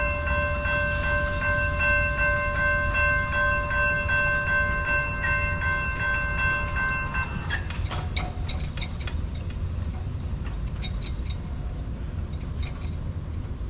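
Passing train with a steady low rumble, its horn holding a multi-tone chord for about seven seconds before it stops. After that comes a run of sharp clicks, like wheels over rail joints.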